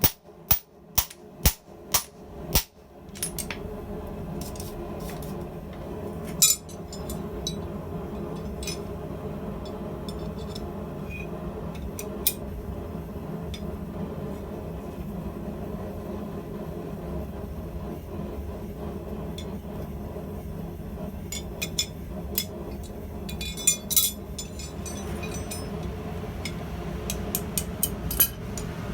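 Hammer striking hot steel on the anvil, a quick run of about seven blows in the first three seconds, then a steady low rush with scattered light taps and clinks of tools and steel.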